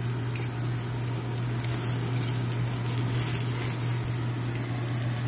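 Marinated lamb chops sizzling and spitting over the gas flames of a Blue Star Platinum char-broiler, with a steady low hum underneath.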